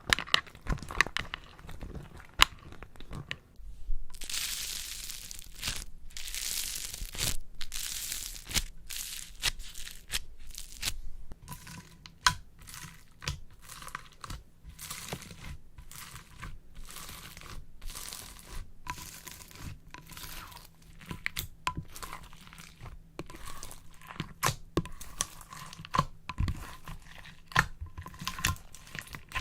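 Slime being squeezed and worked in plastic piping bags: dense, irregular crackling and popping with crinkling plastic, and a stretch of rustling hiss about four seconds in that lasts some five seconds.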